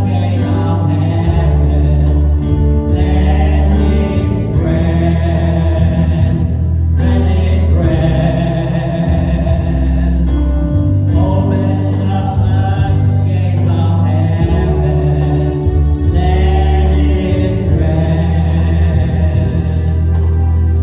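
Gospel worship song sung by a choir over a band with strong bass and steady drums.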